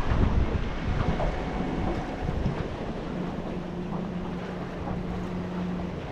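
Wind buffeting the microphone over water lapping against a small boat's hull, with low rumbling gusts early on. About three seconds in, a steady low hum starts and holds to the end.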